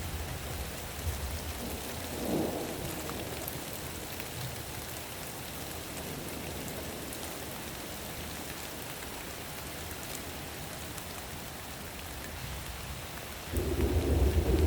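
Steady rain falling during a thunderstorm. A low thunder rumble dies away at the start, there is a brief swell about two seconds in, and near the end a loud peal of thunder breaks out suddenly.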